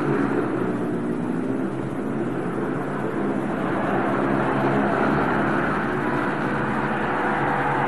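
Two speedway motorcycles racing, their single-cylinder 500 cc methanol-burning engines running hard; the engine note dips about two seconds in and grows again as the bikes come round the track.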